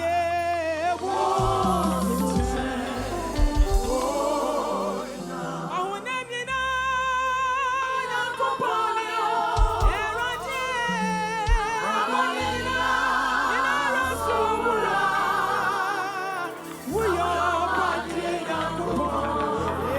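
Gospel worship song: several voices singing with vibrato over sustained low bass notes, with a few sharp low drum hits.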